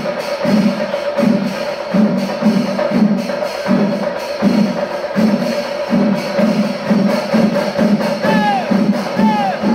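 Kerala chenda melam at its kalasam climax: chenda drums and ilathalam cymbals playing together in a loud, steady beat of about two strokes a second. High gliding calls rise and fall over the ensemble near the end.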